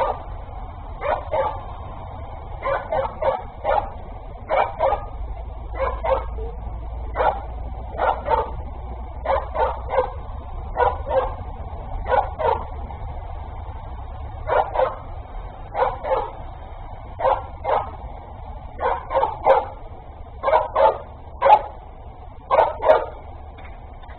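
Dog barking over and over, mostly in quick runs of two or three barks, every second or two.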